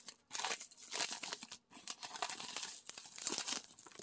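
Plastic mailer bag crinkling and rustling in irregular bursts as it is handled and pulled open.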